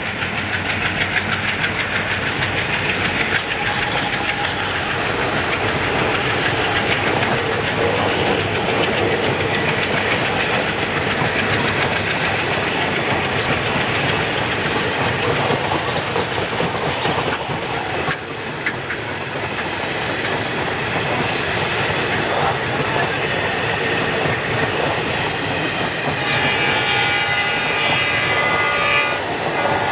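Indian Railways train running on the track: a steady loud rush of wheel and rail noise. Near the end a high tone with several pitches sounds for about three seconds.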